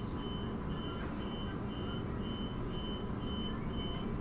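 Steady low rumble of a Bombardier B-series electric multiple unit running, heard from inside the carriage, with a short high beep repeating about twice a second.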